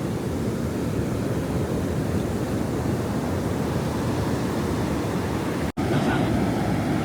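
Ocean surf washing in steadily, with wind buffeting the microphone. The sound cuts out for an instant near the end, then resumes much the same.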